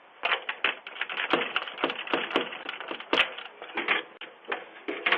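A rapid, irregular run of sharp clicks and cracks, several a second.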